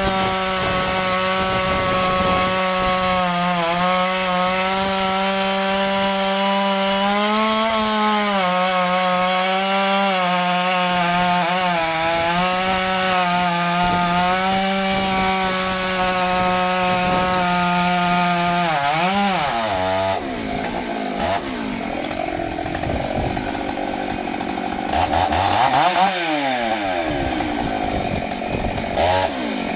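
Stihl MS 661 C two-stroke chainsaw running at high revs, cutting through firewood logs, its pitch dipping briefly several times as the chain bites into the wood. About two-thirds of the way through, the steady engine note gives way to a rougher sound, with the revs falling and rising again near the end.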